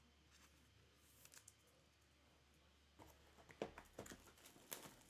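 Mostly near silence with a few faint clicks of trading cards being handled; about three seconds in the handling gets busier, with a quick run of sharper clicks and light crinkles of card packs.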